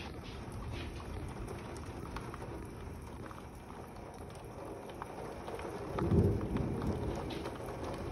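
Steady rain with a low rumble of thunder that swells suddenly about six seconds in, the loudest moment, and dies away over a second or two.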